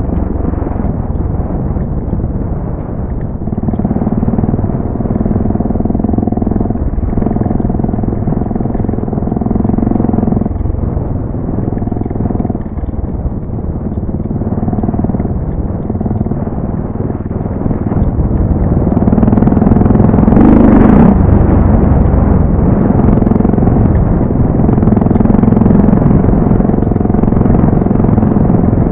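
Suzuki dual-sport motorcycle's single-cylinder four-stroke engine running under way, its revs rising and falling, loudest with a hard rev about twenty seconds in.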